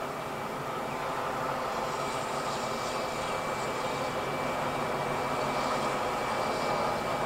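Steam locomotive 5917, a 2-8-2 59-class engine, moving slowly with a train of carriages: a steady rumble that grows gradually louder as it approaches.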